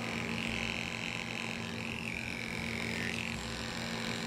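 Electric dog-grooming clipper running with a steady hum as it shaves the fur between a dog's paw pads.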